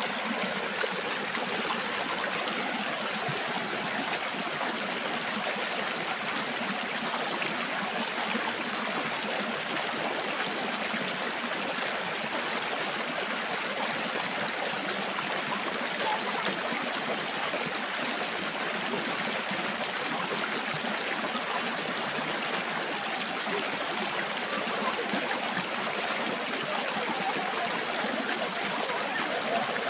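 Shallow river running over rocks, a steady, unbroken rush of water.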